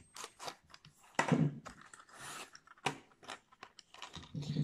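Hard clear-plastic lure box being slid out of its cardboard sleeve and handled: a string of crackles, scrapes and clicks, loudest a little over a second in.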